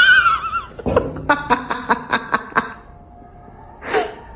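A person laughing in a quick run of about nine short "ha" bursts, just after a brief high-pitched cry at the start.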